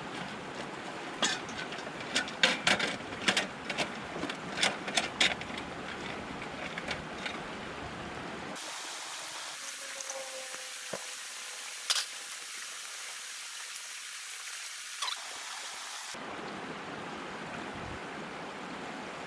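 Clanks and knocks of a portable propane barbecue being handled and set up, over the steady rush of the river. Partway through, the river cuts out abruptly, leaving a high hiss with two sharp clicks, and then the river returns.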